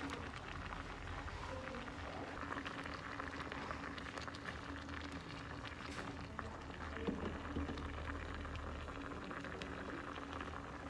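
Water at a rolling boil around okra pods in a small saucepan: a dense, steady bubbling and crackling, with a low steady hum underneath.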